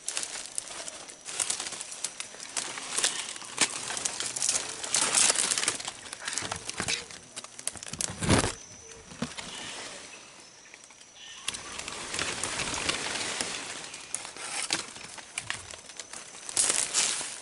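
Irregular rustling and crackling noise, with one dull thump about eight seconds in.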